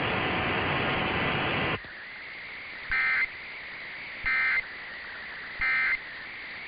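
Emergency Alert System end-of-message data bursts: three short, harsh two-tone digital squawks about a second apart. They are preceded by loud steady hiss that cuts off suddenly near two seconds in.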